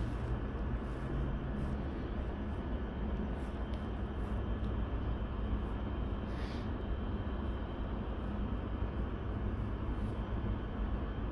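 A steady low motor drone with a few held low tones under a constant rush of noise.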